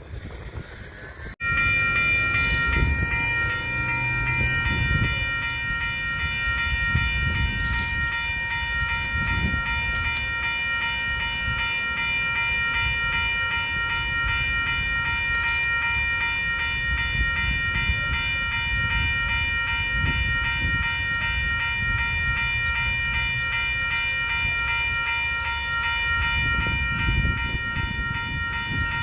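Train sound starting abruptly about a second and a half in: a steady, high-pitched multi-tone sound held without a break over a low, uneven rumble.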